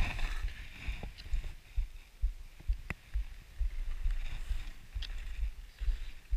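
Wind buffeting a handheld action camera's microphone in uneven low thumps, over the hiss and scrape of skis sliding on packed snow. A few sharp clicks sound about a second, three seconds and five seconds in.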